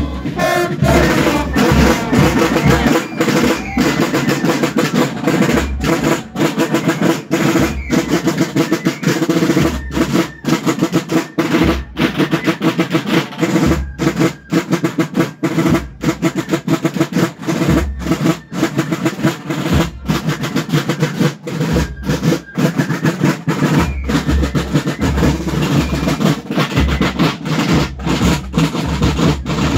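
Street carnival band's marching drums, snare drums and bass drum, playing a steady, driving beat with snare rolls.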